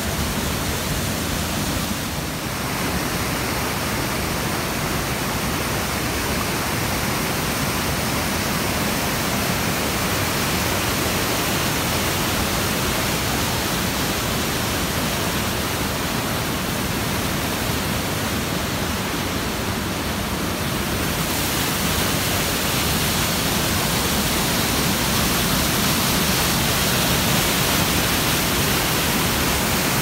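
Waterfall and stream cascades: a loud, steady rush of falling and churning water, a little louder and brighter from about twenty seconds in.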